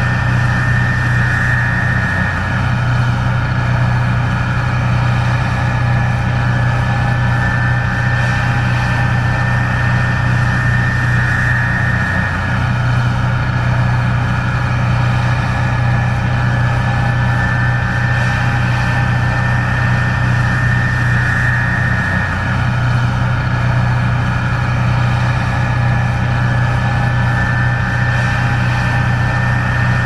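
Case IH 2366 combine harvesting soybeans: the diesel engine and threshing machinery run steadily under load, a deep even drone with a steady high whine above it.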